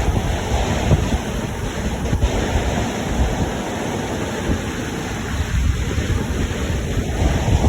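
Whitewater rapids rushing steadily, with wind buffeting the microphone in uneven low rumbles.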